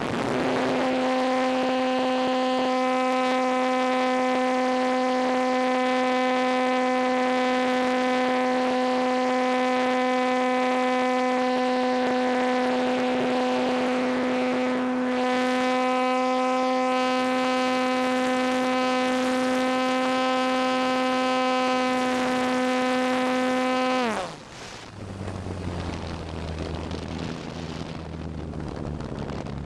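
Motor and propeller of an RC model T-28 plane, heard from a camera on board, running at a steady high pitch in flight. About 24 seconds in the pitch drops sharply as it is throttled back, and it runs on lower and more unevenly.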